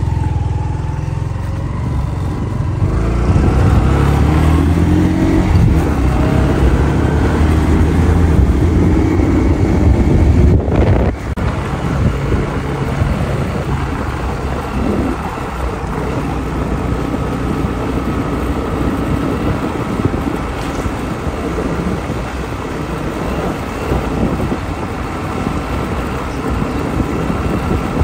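Small motorcycle engine running as the bike pulls away and rides along; its pitch climbs for several seconds, drops abruptly about eleven seconds in, then holds steady.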